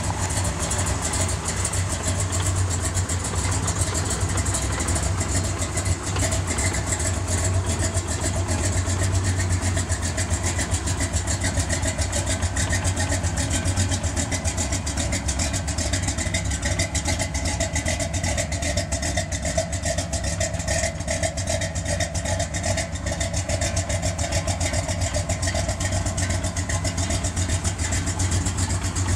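A 1968 Corvette's 454 big-block Chevrolet V8, built to 475 hp with a Comp Cams 280-duration camshaft and a Holley 750 carburettor, idling steadily without revving.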